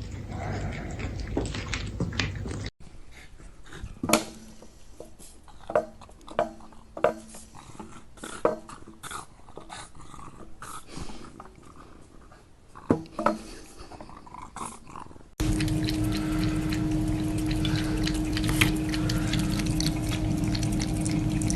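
A dog making noises, with several sharp knocks in the quieter middle stretch and a steady hum under the last part; the background changes abruptly twice.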